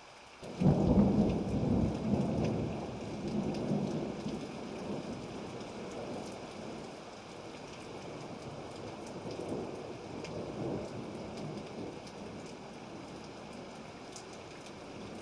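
Thunderstorm: steady rain hiss, broken about half a second in by a sudden loud clap of thunder that rolls and slowly dies away over several seconds, with fainter rumbles rising again later.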